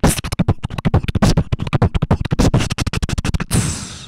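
Human beatboxing into a handheld microphone: a fast, dense run of percussive mouth sounds. It ends with a hissing sweep that fades out near the end.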